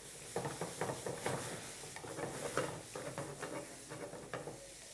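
A spatula stirring and scraping in a frying pan of sizzling butter-and-oil tadka with cumin, chillies and curry leaves: a string of short scrapes and clicks over a light sizzle.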